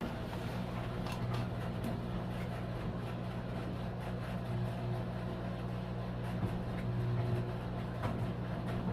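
Samsung Hauzen front-loading drum washing machine running with freshly replaced drum dampers: a steady low motor hum that swells and eases about every three seconds as the drum turns, with a few light knocks.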